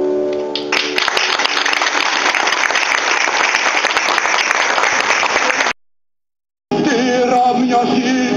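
Audience applauding for about five seconds, just after a held keyboard chord ends. The sound cuts out abruptly for about a second, and singing with instrumental music then comes in.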